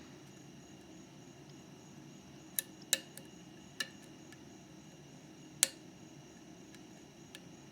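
Small sharp metallic clicks of a lock pick working the pin stacks of a Mauer MLS euro cylinder lock: about six scattered clicks, the loudest about five and a half seconds in, over a faint steady hum.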